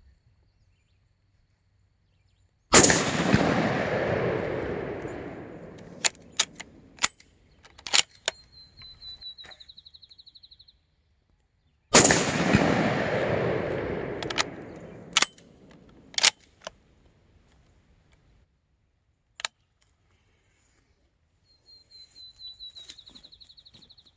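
Two shots from a .30-06 US Model 1917 Winchester rifle, about nine seconds apart. Each loud crack is followed by a long rolling echo that dies away over about three seconds, then a few sharp clicks.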